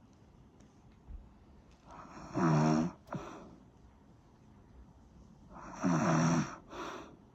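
Snoring: two loud snores about three and a half seconds apart, each followed by a short, softer breath sound.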